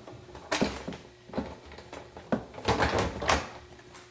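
Plastic ice maker bin of a Samsung refrigerator being slid back into its compartment: a string of knocks and scrapes of plastic against plastic, busiest past the middle.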